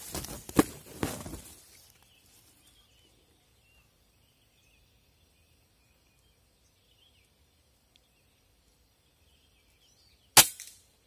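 A single sharp shot from a scoped air rifle about ten seconds in, the loudest sound here, fired at a green junglefowl. Before it come a short burst of rustling and knocks in the first second and a half, then faint bird chirps in the quiet.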